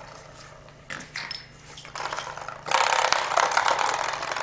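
Coiled-spring door stop twanging and rattling as a puppy bats and pulls at it: several short twangs in the first two seconds, then a louder, longer rattling twang.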